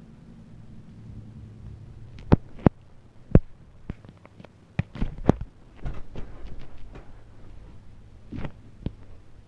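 A series of sharp knocks and clicks, loudest a couple of seconds in and again about five seconds in, over a faint low hum.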